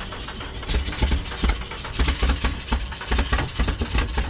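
A 1992 Nissan Pathfinder's engine being cranked over by its starter, turning over in uneven pulses about twice a second without yet running steadily.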